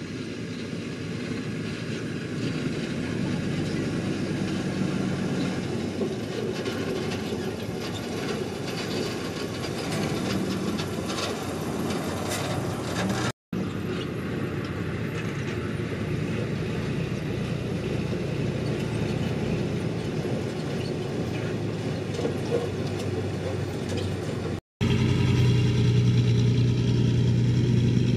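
Diesel dump trucks driving along a dirt road: steady engine and road noise, cut off twice briefly. In the last few seconds a louder, steady low engine drone.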